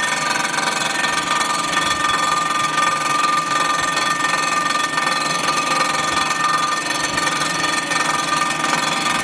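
Storm Vulcan Blockmaster 85B resurfacing machine running, its wheel taking a two-thousandths cut across the deck face of a Jeep 258 cylinder head on slow speed for a fine finish. A steady machine noise with several steady high tones.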